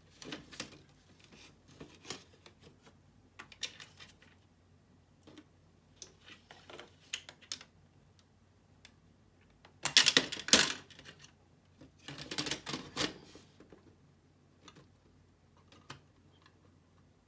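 Hands working on an opened laptop: irregular bursts of small clicks and rattles of plastic and metal parts, the loudest clatter about ten seconds in and again about twelve seconds in.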